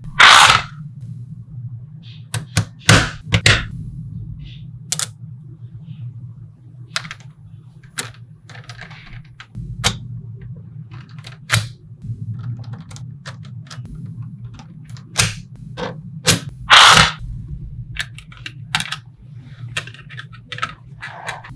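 Small magnetic balls clicking and snapping together at an irregular pace, with a few louder snaps, over a steady low hum.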